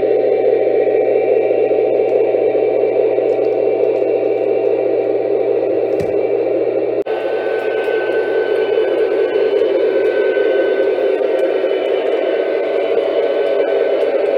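Lionel O-gauge Union Pacific Veranda gas-turbine locomotive model running, its onboard sound system giving a loud, steady turbine roar with a low hum. About halfway through, the sound shifts slightly and a faint steady whine joins it.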